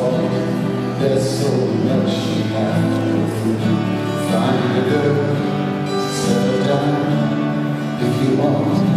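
Live music: a man singing a slow folk song at the microphone over acoustic guitar and band accompaniment.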